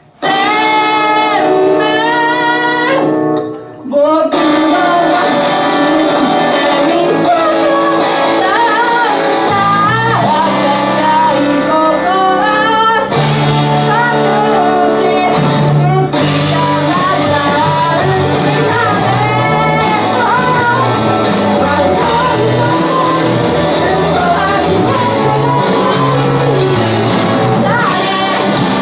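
Rock band playing live: a singer over sustained electric guitar chords, then the full band with drums comes in about four seconds in and keeps going.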